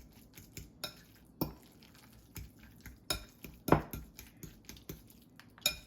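A fork mashing avocado in a bowl: irregular clinks and knocks of the fork against the bowl, the loudest a little past halfway.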